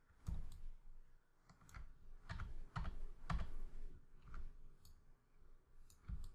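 Computer mouse and keyboard clicks: about a dozen sharp, separate clicks at an uneven pace.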